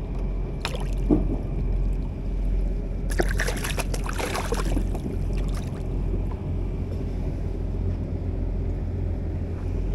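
Hooked fish thrashing and splashing at the water's surface for about a second and a half, starting about three seconds in, as it is hauled up on a hand line. A steady low hum runs underneath.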